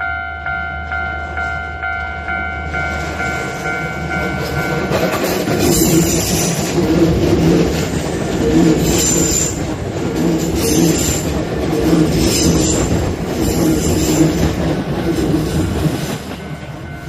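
A level-crossing bell rings with a steady pulsing ding, about two strikes a second, then a Hankyu 6300 series electric train runs past over the crossing: a loud rush of running noise with the wheels clacking over the rail joints in a group about every second and a half as each car goes by, easing off near the end.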